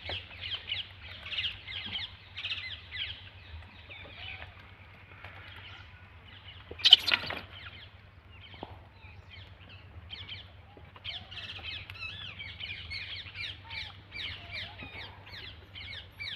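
Small birds chirping and twittering in a busy chorus. It thins out in the middle and grows busy again from about eleven seconds in. A single loud, brief sound stands out about seven seconds in.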